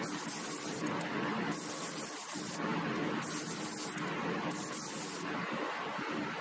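Gravity-feed spray gun spraying ceramic coating onto small metal parts in four short hissing bursts, each under a second, with brief gaps between trigger pulls.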